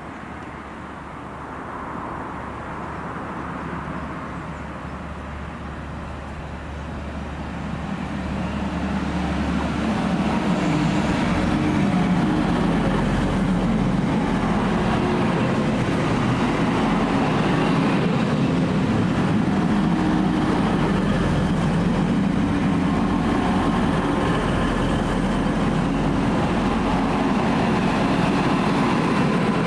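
Grand Central class 180 diesel multiple unit coming into the station, its diesel engines getting louder over the first ten seconds or so and then running steadily at a constant level.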